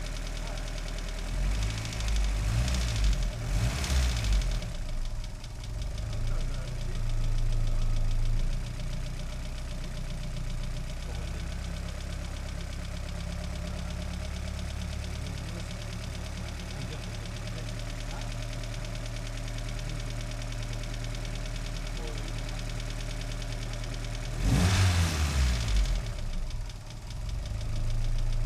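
An engine running steadily at idle, with two louder stretches of a few seconds: one about two seconds in and one near the end.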